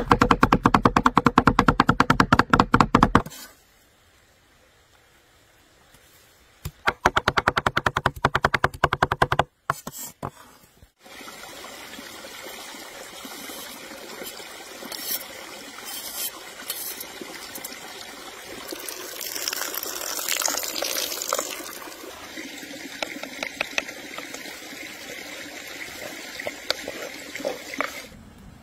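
Two cleavers chopping parsley and red peppers on a wooden board: two fast runs of hard knocks in the first ten seconds. After that comes a softer, steady scraping noise with scattered small clicks, as the chopped herbs are worked into a wooden bowl.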